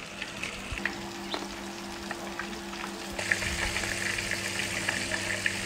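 Batter-coated chicken pieces deep-frying in a wok of hot oil, a steady sizzle with faint crackles, growing louder about three seconds in. A low steady hum runs underneath. The chicken is fried slowly on low heat until golden and floating.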